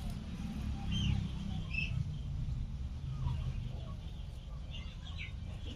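A few short, high bird chirps, about a second in, near two seconds and near the end, over a steady low rumble.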